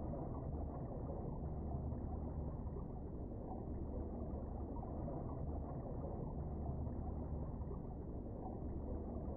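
Steady, muffled low rumble of underwater ambience picked up by a camera submerged beneath lake ice, with no distinct events.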